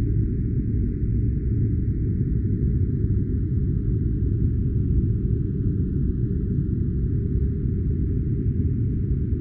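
A steady, unbroken noise track for sleep or study, dark and deep like brown noise. Nearly all of it is a low rush, with a much fainter hiss above it and nothing in the highs.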